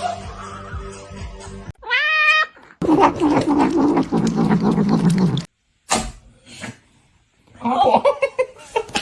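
A cat meowing, with a short rising meow about two seconds in and further cat calls later on, over background music.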